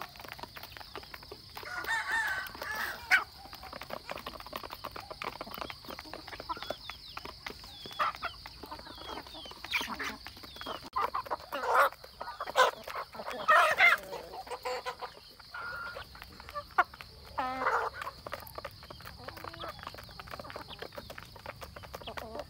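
A flock of chickens and roosters clucking and calling as they feed, with a few louder calls standing out, over a rapid patter of beaks pecking at the feed dishes.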